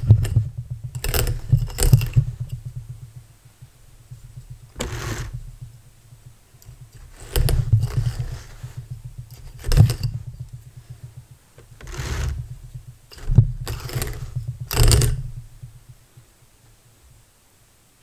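Alpaca fiber being peeled off the wire-toothed drum of a Louet XL drum carder. About eight short scratchy rasps as the batt tears free of the carding cloth sit over a low, fast rattle from the carder, and it all stops about two seconds before the end.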